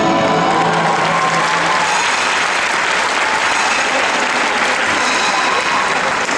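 Audience applauding steadily, taking over as the music fades out about two seconds in.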